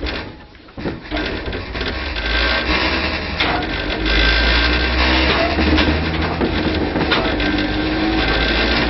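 Tobu 5050 series electric train with nose-suspended traction motors, heard from inside the car as it pulls away and gathers speed. A loud thud comes at the start, then the motors' low hum and gear whine build up and slowly climb in pitch as it accelerates.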